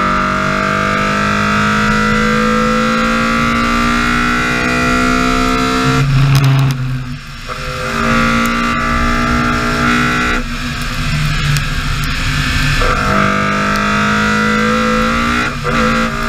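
BMW E30 M3's four-cylinder engine pulling hard under load, its revs climbing steadily for about six seconds, then cut off briefly at a lift and gear change, with further climbs broken by shifts about ten and fifteen seconds in.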